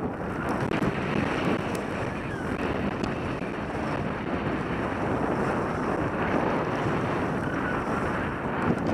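Wind rushing over a helmet-mounted camera's microphone during a downhill ski run, a steady loud rush mixed with the hiss of skis sliding on packed snow.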